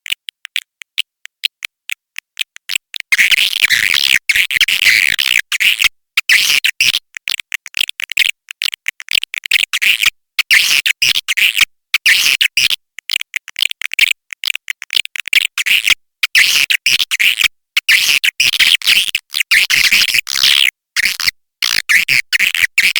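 Swiftlet call track: dense, rapid chattering chirps and clicks from a crowd of swiftlets, coming in bursts of a second or two with short breaks between them. It is a 'suara panggil' lure call, played at swiftlet nesting houses to draw the birds in.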